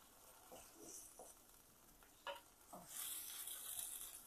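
Wooden spatula stirring and tossing spaghetti in a frying pan, faint soft scrapes and clicks, with a light sizzle from about three seconds in as the pasta water cooks down into the sauce.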